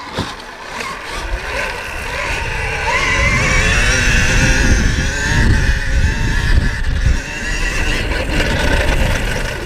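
KTM Freeride E electric dirt bike's motor whining as the bike speeds up, getting louder over the first few seconds, under a heavy low rumble of wind and tyre noise.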